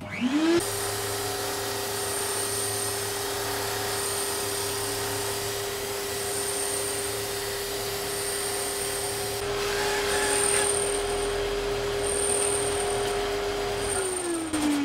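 Sander thicknesser (drum sander) switched on, spinning up to a steady hum, then running as the ash laminate on its tapered sledge is fed through, with louder sanding noise in the last few seconds. This is a final thicknessing pass that sands the laminate to its finished taper. Near the end the motor is switched off and winds down with a falling pitch.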